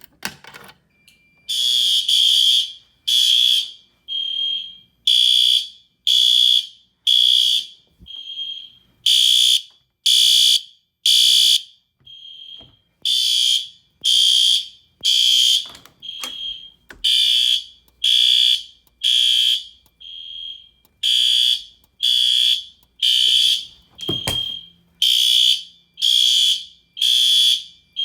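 Fire alarm horns sounding the temporal-three evacuation pattern: three loud blasts about a second apart, a pause, and the cycle repeating every four seconds, with a fainter horn tone in each gap. The system is in alarm after a manual pull station was pulled. A single knock sounds about three-quarters of the way through.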